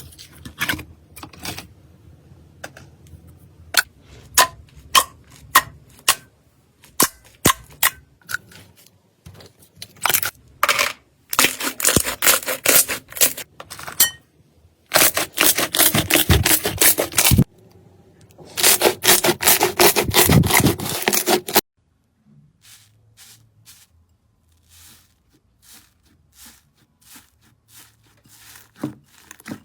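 Slime being pressed and handled, giving sharp separate pops, then three long stretches of dense crackling, then fainter scattered pops near the end.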